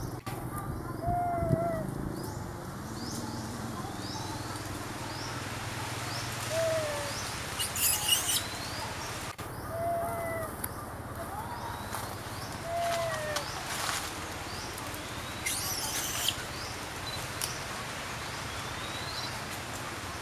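Birds calling in the trees: scattered short, rising chirps and brief low whistled calls every few seconds, over steady outdoor background noise. Two short noisy bursts come about a third and three-quarters of the way through.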